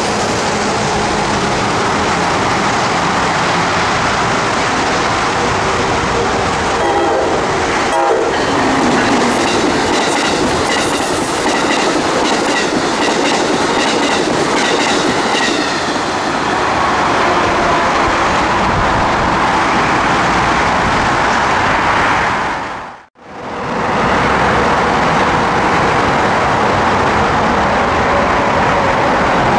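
Amtrak passenger train passing through the station at speed, sounding its horn as the Amfleet cars rush by with a rumble and wheel clatter. After a sudden cut a little past twenty seconds in, a steady rumble continues.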